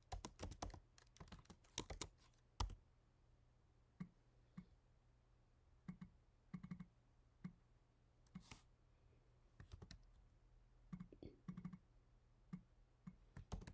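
Faint computer keyboard typing: a quick run of key clicks at first, then scattered single keystrokes and short clusters of clicks.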